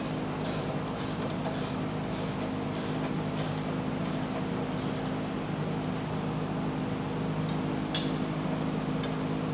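Ratcheting wrench tightening a nylock nut on a steel linkage bolt: short bursts of ratchet clicks, about two to three a second, for the first five seconds, then one sharper metallic click near the end. A steady low hum runs underneath.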